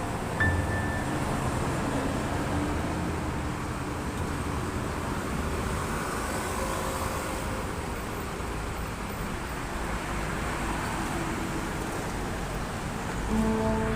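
Steady engine and road noise of a city bus on the move.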